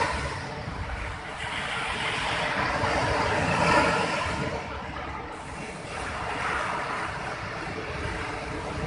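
Rushing noise of wind and sea surf, swelling loudest around the middle and easing off.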